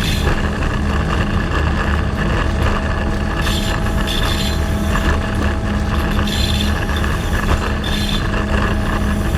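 Diesel locomotive running steadily, a deep engine hum with a steady tone over it, and short high hisses coming and going every second or so.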